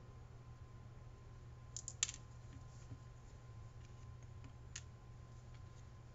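A few sharp little clicks and taps from small metal and plastic parts and a screwdriver being handled on a workbench, a quick cluster about two seconds in being the loudest and another single click near five seconds, over a faint low hum.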